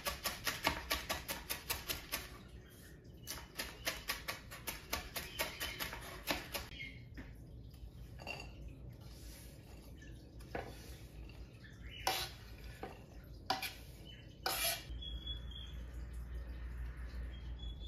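Chef's knife rapidly chopping fresh coriander leaves on a cutting board, an even run of about five strokes a second that breaks off briefly about two seconds in and stops at about seven seconds. After that come a few scattered knocks and clinks.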